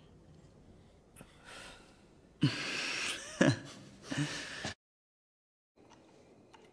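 A man's breathy laughter in a few bursts, which breaks off suddenly into a second of dead silence.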